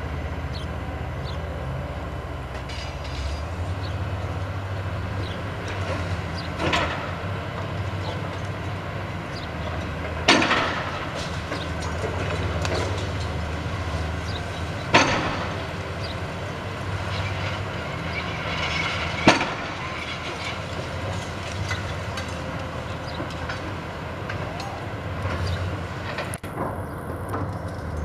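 Demolition excavator's diesel engine running steadily under hydraulic load while its demolition shear chews into a concrete floor slab. About four sharp cracks and crunches of breaking concrete stand out over the drone.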